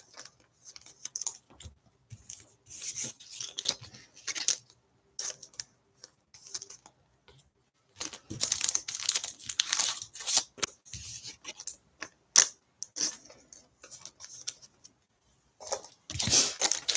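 Plastic card sleeves and wrappers being handled as trading cards are put into top loaders: irregular bursts of crinkling and tearing with small clicks, separated by short pauses.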